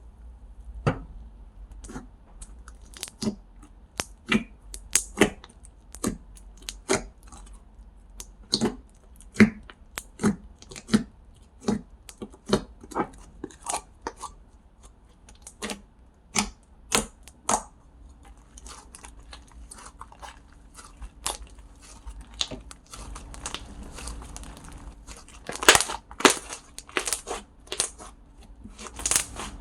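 Slime being squished and poked, making a run of sharp, irregular clicking pops, about one or two a second. About two-thirds of the way in a faint steady hum starts, and the pops come louder and closer together near the end.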